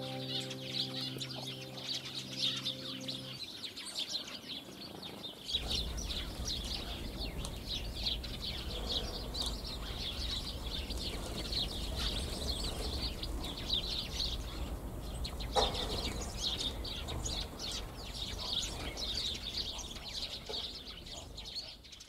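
Many small garden birds chirping busily and continuously, with a low rumble joining about a quarter of the way in and one short, lower, louder call about two-thirds through. Background music fades out in the first few seconds.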